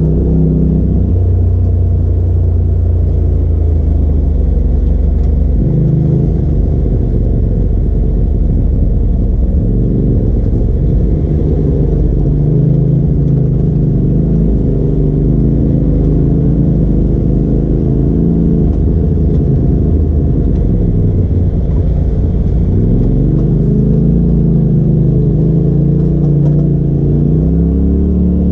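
Polaris RZR side-by-side engine running under load on a rough trail, its pitch rising and falling over and over as the throttle is worked.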